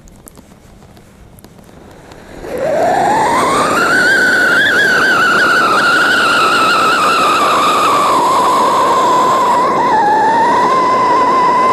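Diwali siren firecracker going off. After a couple of quiet seconds, a loud whistle sweeps up in pitch about two and a half seconds in and holds high and wavering, slowly sagging lower, over the hiss of its spark fountain.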